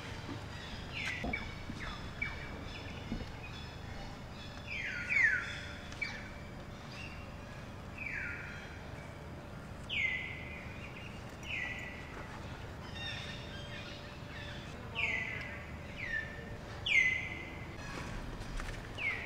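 Short high-pitched calls, each dropping sharply in pitch, repeated irregularly about once a second, over steady outdoor background noise; the loudest come about five seconds in and near the end.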